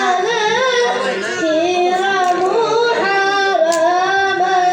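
A boy's voice chanting a devotional samaa melody, with ornamented pitch turns and a long held note near the end.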